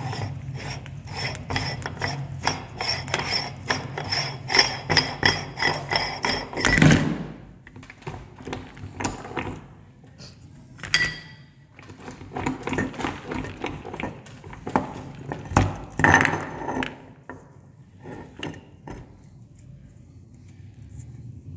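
Metal parts of a meat grinder being taken apart by hand: a quick run of metallic clicks with a ringing note as the plate and threaded ring are worked loose, a heavier thud about seven seconds in, then scattered clinks and handling of the parts.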